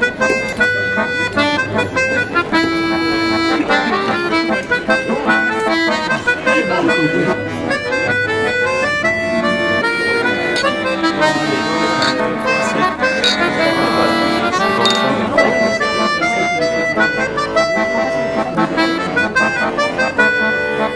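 Background music: a quick run of short notes over longer held notes.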